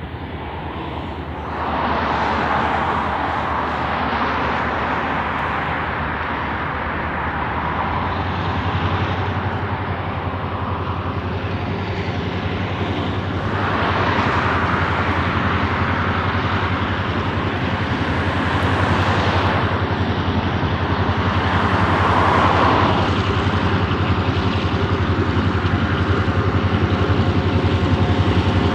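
Two Clyde-built EMD diesel-electric locomotives hauling a freight train at low speed, a steady low engine drone that grows gradually louder as they approach. Road traffic passes now and then, about five times.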